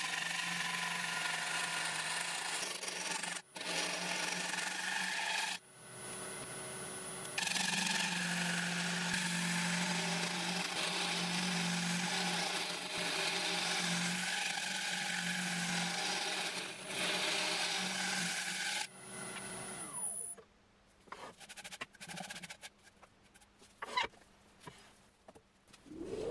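A turning tool cutting into a spinning ash bowl blank on a wood lathe: a steady rush of scraping and shaving over the lathe's low hum, broken twice briefly. About three-quarters through the cutting stops, leaving a quieter stretch with scattered clicks and knocks.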